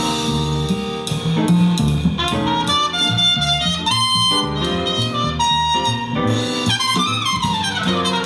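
A music clip with a melodic lead, a strong bass line and drums, playing loudly through a large Sharp hi-fi speaker with a 9-inch bass driver. The speaker is driven by a tiny PAM8403 3 W class-D amplifier board powered from a 5 V USB port, and the sound is full, with bass and no audible distortion.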